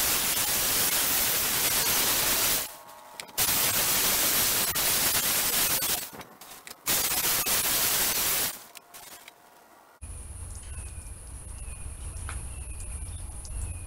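Power drill spinning a Velcro-backed 2000-grit sanding pad on a plastic headlight lens, a loud steady hiss in three bursts of a few seconds each with short pauses between: the wet-sanding step that takes out the swirl marks left by the 1500 grit. Near the end, insects chirping and buzzing.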